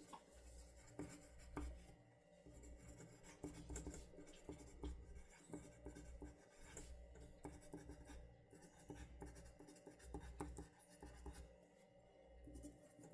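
Faint scratching of a pen writing on paper, in short strokes with small ticks and rubs.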